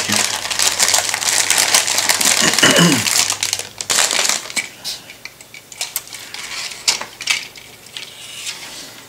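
Clear plastic kit bag crinkling as plastic model sprues are handled and lifted out of it: dense, loud crackling for about four seconds, then thinner, scattered rustles.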